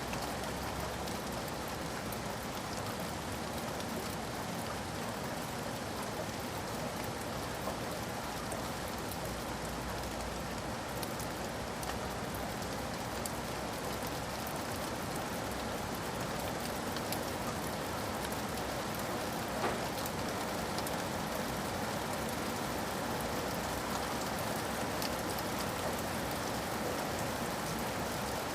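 Steady rain falling, a constant hiss with fine patter of drops, and one slightly louder tap about twenty seconds in.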